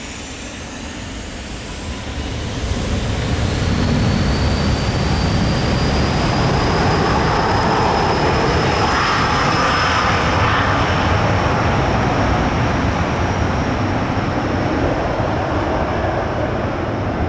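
Cessna Citation VII business jet's twin TFE731 turbofans at takeoff power. The jet noise builds over the first few seconds, then holds loud, with a high turbine whine rising slightly in pitch over a wide rumble. It eases a little near the end.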